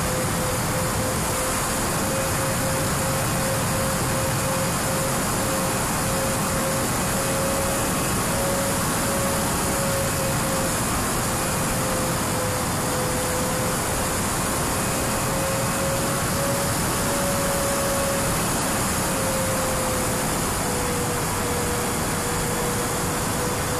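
Twin SunnySky 2212 brushless motors and propellers of a Sonicmodell Binary RC plane in cruise: a steady whine that drifts slightly in pitch, over constant wind rush on the onboard camera.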